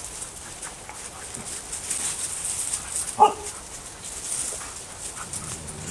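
A harnessed sled dog gives one short, high bark about three seconds in, amid faint scattered clicks and scuffles from the pack moving around.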